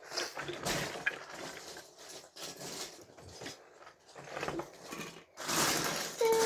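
Plastic Lego bricks clattering and rattling as hands rummage through a box of pieces, a run of irregular clicks that gets louder and denser about five seconds in.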